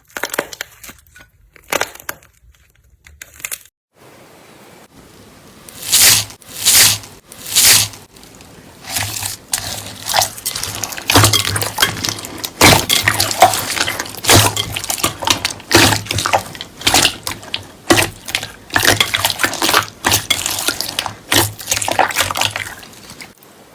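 Slime being squeezed and poked by hand, making wet clicks, pops and crackles. A few scattered clicks come first, then after a short pause it becomes a dense, irregular crackling with a few louder squelches.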